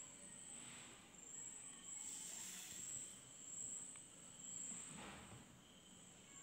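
Faint scratching of a ballpoint pen drawn along a plastic ruler across paper, a few soft strokes, over a steady high-pitched whine.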